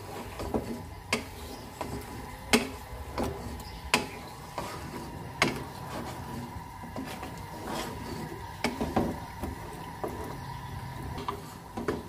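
Wooden spatula stirring a thick meat-and-vegetable curry in a wok, knocking and scraping against the pan at irregular intervals, over a faint steady hum.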